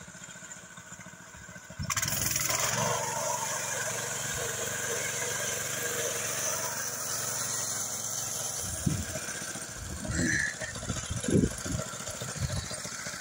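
Walk-behind-tractor engine of a homemade trike running steadily, coming in abruptly about two seconds in. A few dull thumps in the last few seconds.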